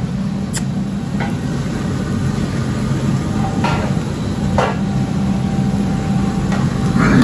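A steady low mechanical hum, with a few short clicks and knocks over it.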